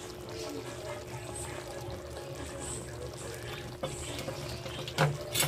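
Pan of chicken menudo stew in tomato sauce simmering, a steady bubbling hiss, with a few sharp clicks in the second half, the loudest about five seconds in.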